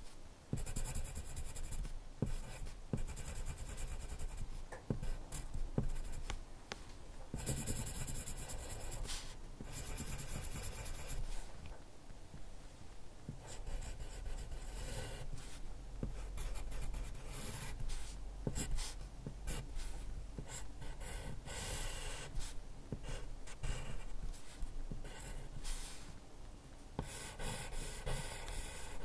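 Graphite pencil scratching across drawing paper as a figure is drawn: many short, irregular strokes with brief gaps, and a few longer continuous stretches.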